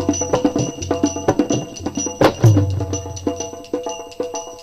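Instrumental break in a sung folk ballad: rapid hand-drum strokes with a deep drum hit a little over two seconds in, over a steady held note from a melody instrument.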